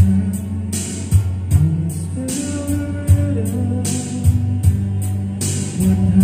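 Karaoke backing track playing from a karaoke player: a pop song with a steady drum beat under sustained instrumental parts.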